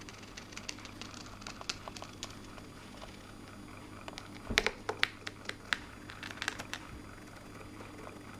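Irregular light clicks and taps, with a quick cluster of louder ones about halfway through, the first of them with a dull thump, over a faint steady hum.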